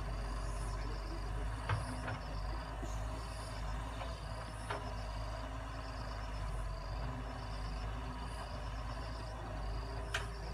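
Wheeled excavator's diesel engine running steadily as it digs, with a few short sharp knocks from the bucket and arm. Insects chirp in a repeating pattern, about once a second.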